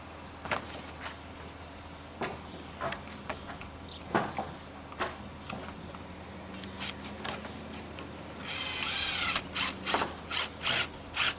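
Cordless drill driving a screw through a plastic plug and dimpled drainage membrane into the tie of an ICF block. Scattered clicks and ticks, then a short burst of the drill running about three quarters of the way in, followed by a quick run of sharp clicks.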